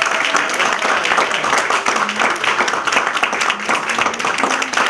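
A small audience clapping and applauding, with a few voices among the clapping.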